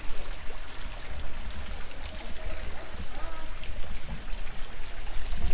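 Courtyard fountain splashing and trickling steadily, over a low steady rumble.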